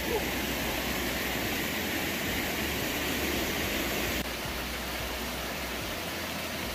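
Water gushing out of the large concrete outlet pipes of a small weir and splashing onto rocks below: a steady rushing noise with no break, dropping a little in level about four seconds in.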